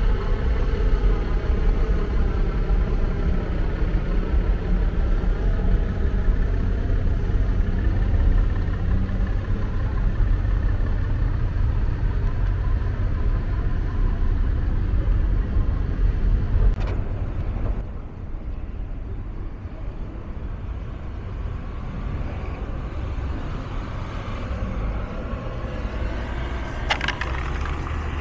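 Road traffic on a busy city street: cars and buses passing with a steady rumble of engines and tyres, including the running engine of a large vehicle. The traffic noise drops noticeably about two-thirds of the way through. There are a couple of brief clicks.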